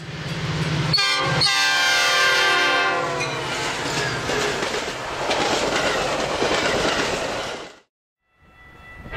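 A train going by: a low rumble, then a loud horn blast whose pitch drops as the train passes, followed by wheel and rail noise. The sound cuts off abruptly about eight seconds in.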